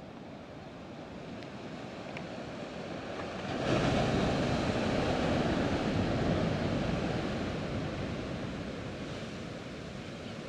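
Sea surf breaking and washing against rocks, a wave surging in suddenly about a third of the way through and slowly dying away.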